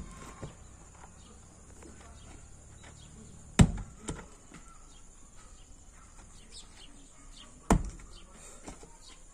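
Heavy round stones with a centre hole are thrown one at a time onto packed dirt. They land with two loud thuds about four seconds apart, and the first is followed half a second later by a smaller knock as the stone tumbles.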